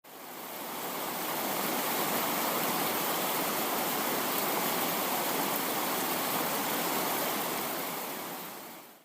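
Steady rushing noise with no pitch, like running water or static, fading in over about two seconds and fading out near the end.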